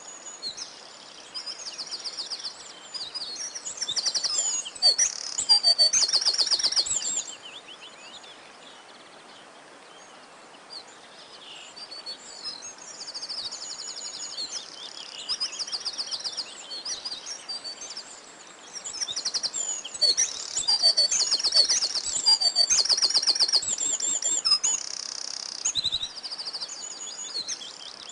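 Songbirds singing: repeated high chirps and fast trills from several birds, swelling into two louder bursts of trilling, one about five seconds in and another past the middle, with a quieter lull between.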